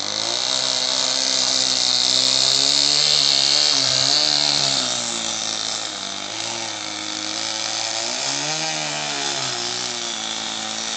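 Scale model Cessna's motor and propeller running on the ground at its first run. It is loudest through the first half, and its pitch rises and falls briefly twice, about four and eight and a half seconds in, as the throttle is blipped.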